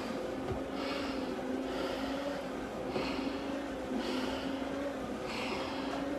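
Hard breathing through a firefighter's SCBA facepiece and regulator: a rush of air with each breath, about once a second, under heavy exertion from climbing.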